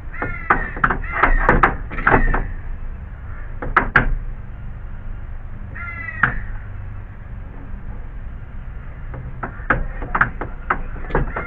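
Sharp metal knocks and clicks from a pry bar working on a car's radiator support. A crow caws a few times, at the start, about 2 seconds in and again about 6 seconds in.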